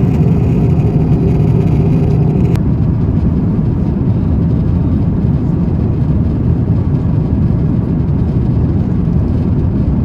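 Steady low rumble of airliner cabin noise in cruise inside an Airbus A350-900's economy cabin. The higher hiss drops away abruptly about two and a half seconds in.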